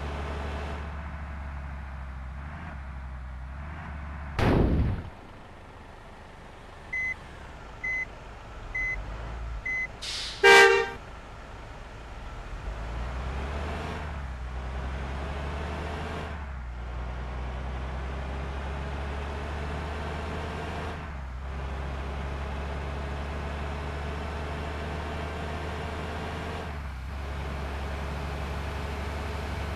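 A motor vehicle running steadily. About four and a half seconds in there is a loud short falling sound, then four short high beeps about a second apart, then a loud horn toot about ten seconds in.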